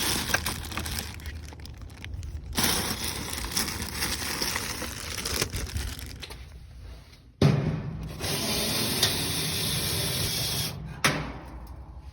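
Dryer parts being handled: scraping and rattling of the drum bearing and its bracket, with a sharp knock about seven seconds in followed by a few seconds of steady hiss.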